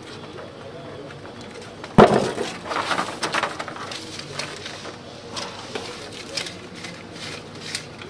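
A single sharp knock about two seconds in, then crackling, rustling and small clicks from hands working scissors and a self-adhesive velcro strip onto the rubber of a floor-machine baseboard attachment.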